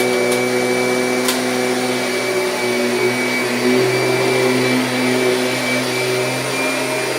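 Kirby G6 upright vacuum cleaner running steadily at full speed, its motor giving a steady whine, with a single click about a second in.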